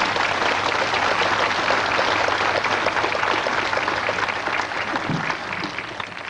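Audience applauding: many hands clapping densely together, fading away near the end.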